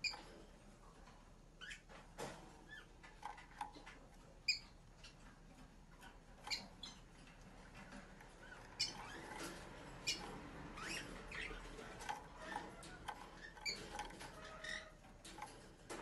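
Faint, scattered short chirps and ticks from a Makige frill canary moving about its wooden cage, coming more often in the second half.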